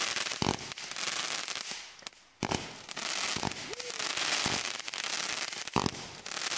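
Consumer firework cake firing: a dense crackling hiss of rising comets and crackling stars. Several sharp launch thumps come through, and there is a short lull about two seconds in.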